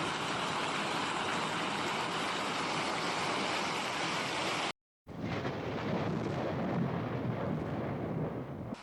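Hail and rain pelting down hard in a heavy hailstorm, a dense continuous clatter, broken by a sudden cut to silence a little under five seconds in, after which a second stretch of pelting has more low rumble in it.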